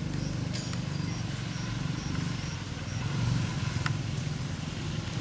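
A steady low engine drone, like a motor running nearby, with a few faint short high chirps over it.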